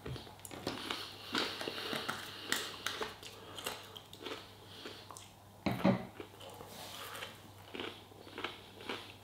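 A person chewing crisp breaded chicken: irregular crunching and mouth noises close to the microphone, with one louder knock about six seconds in.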